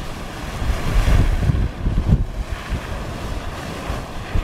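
Jewel Geyser erupting: its water jet splashing and hissing steadily. Wind buffets the microphone in uneven low gusts over it.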